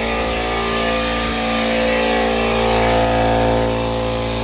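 Central Pneumatic 21-gallon 2.5 HP air compressor running steadily, its pump building tank pressure on freshly replaced reed valves.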